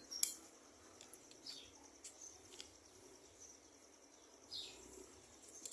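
Faint outdoor ambience: a steady high insect-like hiss, with a few short falling bird chirps and scattered light clicks.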